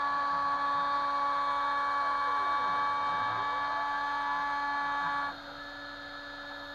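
Kress FME 800 router spindle running at high speed while a Stepcraft 2/420 CNC mills aluminium, a steady high whine mixed with the stepper motors' tones sliding up and down in pitch as the axes move. About five seconds in it gets noticeably quieter and some of the higher tones drop out.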